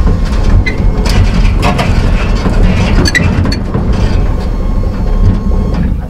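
A 5.3L LM7 V8 pickup running down the road with Cherry Bomb mufflers, heard from the open truck bed: a loud, deep exhaust and road rumble with frequent rattles and clicks. It eases off slightly near the end.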